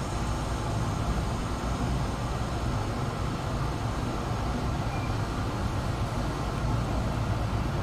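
Steady low rumble of room background noise with no distinct events.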